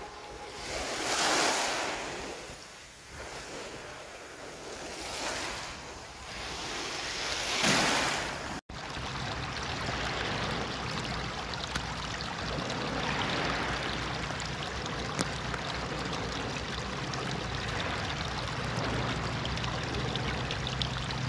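Small waves washing onto a beach, swelling and fading three times. After a sudden break about nine seconds in, a steady rush of shallow water running over stones takes over.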